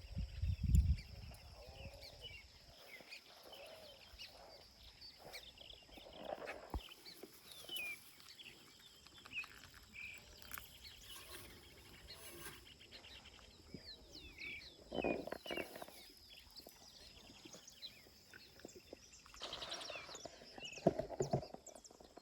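Birds chirping over a steady high insect drone, with a low bump about a second in and a few brief louder rustles later on.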